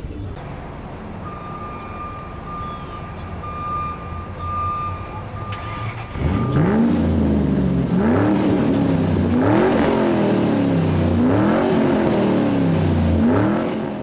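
Race-car engine sound effect: a quieter engine-like rumble with a thin steady whine at first, then about six seconds in it grows louder and revs up and down about five times, as if shifting through gears.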